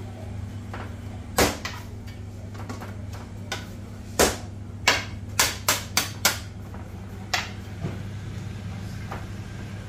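Irregular knocks and slaps as bread dough is cut into pieces, weighed and set down on a stone worktop and a digital scale, several of them close together a little past the middle. A steady low hum runs underneath.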